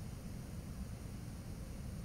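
Steady low rumble and faint hiss of room tone, with no distinct events.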